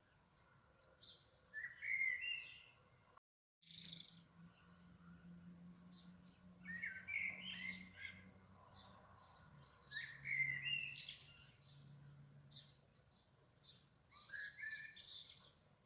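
Springtime birdsong: short warbling songbird phrases every few seconds, with fainter chirps between them. The sound drops out completely for a moment about three seconds in.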